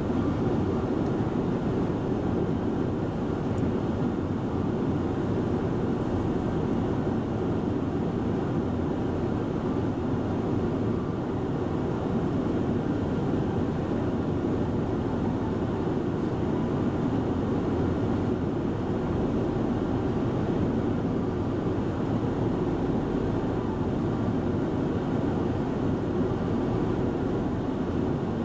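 A steady, unbroken low rumble with no clear pitch, typical of a running vehicle.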